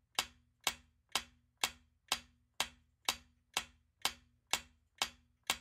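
Quiz countdown-timer sound effect: short, even clock-like ticks at about two a second.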